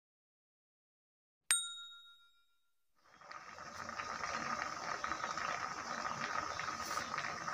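A single bell ding, the sound effect of a subscribe animation, about a second and a half in, ringing out briefly. From about three seconds, a faint steady hiss of a pot of potatoes boiling in water on the stove.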